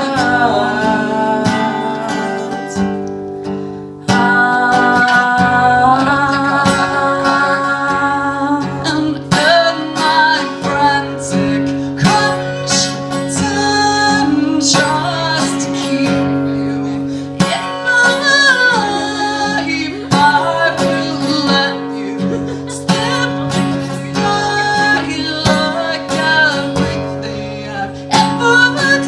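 Live acoustic guitar music, strummed, with a wavering melody line over it during a break without lyrics.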